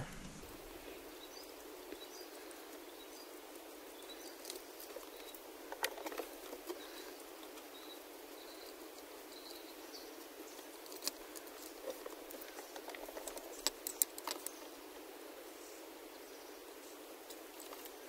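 Faint, scattered clicks and taps of small parts being handled and set down while the shifter is taken apart, over a steady low hiss; the clicks cluster about four to six seconds in and again from about eleven to fifteen seconds.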